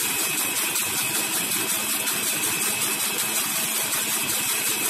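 Electric blender motor running steadily, blending egg with soybean oil as the oil is trickled in to make mayonnaise.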